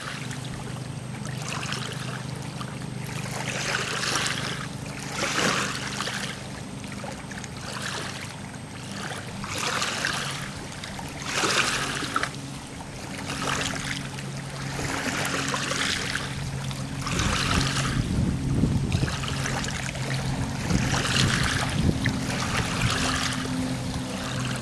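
Small waves lapping against a stony lake shore, a wash every second or two, over a steady low motor hum that turns rougher and louder about two-thirds of the way through.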